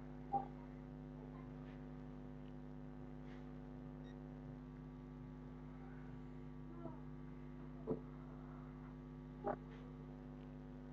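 Steady electrical mains hum with buzzy overtones, picked up on the recording. A few faint short clicks break it, two of them near the end.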